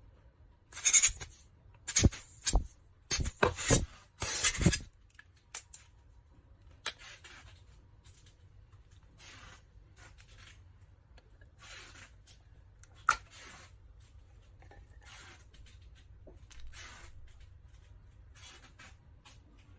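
Plastic parts of a Philips Sonicare electric toothbrush being handled and worked on: a quick run of scrapes and clicks in the first five seconds, a single sharp click later, then faint intermittent rubbing.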